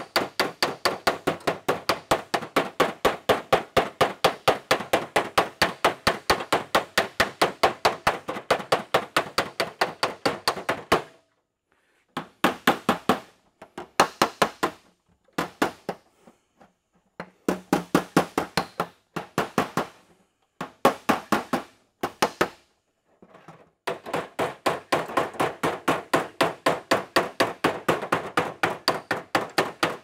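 Body hammer tapping the steel skin of a 1928 Ford Model A trunk lid in quick, even blows about four a second, working out bent metal around the latch handle hole. The tapping stops about eleven seconds in, comes back in short runs, and settles into a steady run again from about twenty-four seconds.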